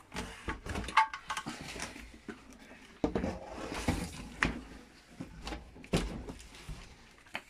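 Cardboard and plastic packaging rustling, with irregular knocks and clicks, as a small Honda GX100 engine is lifted out of its shipping box and set down on a cardboard sheet. The sharpest knock comes about a second in.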